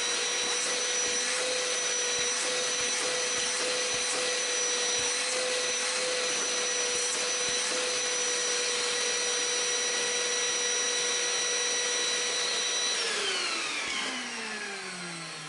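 Shop vac running steadily with a whine over the rush of air, drawing strong suction through a welded rectangular steel extraction spout on its hose. About 13 seconds in it is switched off and the whine falls away as the motor winds down.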